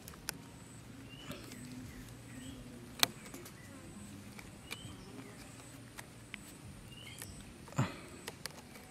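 Rubber bands being stretched and wound around the plastic handle of a pair of scissors, giving a few sharp clicks and snaps, the loudest about three seconds in and a duller knock near the end.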